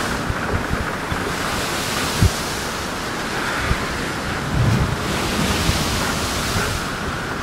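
Steady rushing wind noise buffeting the microphone, with uneven low rumble and a few short low thumps.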